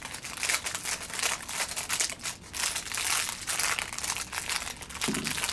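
Clear plastic packaging bag crinkling and rustling, in irregular bursts, as small parts are worked out of it by hand.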